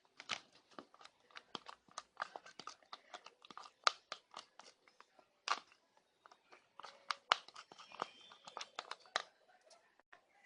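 Homemade slime mixture being stirred in a container: a string of irregular sticky clicks, crackles and squelches as it is worked until it clumps.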